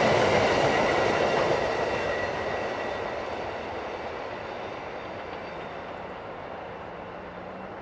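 Amtrak passenger train rolling past on the rails, wheels clicking over the track with a thin ringing whine, fading steadily as the end of the train moves away.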